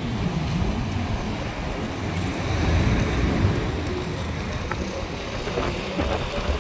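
Street traffic noise: a steady wash of passing cars, with no clear single event.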